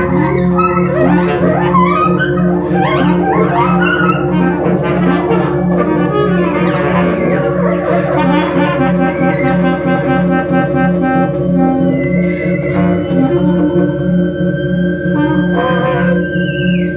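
Improvised electroacoustic music: bass clarinet over a steady, pulsing low electronic drone from a laptop. Dense flurries of quick sliding notes in the first half give way to long held tones with a few gliding pitches.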